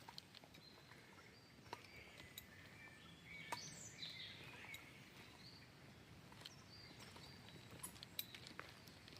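Faint birdsong: short whistled notes and a cluster of chirps, busiest a few seconds in, over a low background hiss with a few scattered light clicks.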